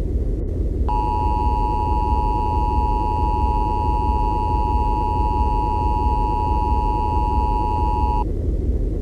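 Emergency Alert System attention signal: a steady two-tone beep just under 1 kHz that starts about a second in and cuts off about seven seconds later, over a steady low rumble.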